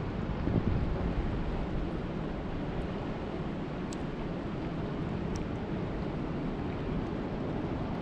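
Steady rush of lake water and wind, heaviest in the low end, with wind buffeting the microphone and a brief swell about half a second in. Two faint ticks come around four and five seconds in.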